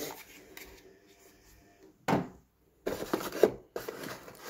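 Hands rummaging in a cardboard box: knocks and scrapes of cardboard and plastic as the power adapter and cables are handled in their compartment, with one sharp knock about three and a half seconds in.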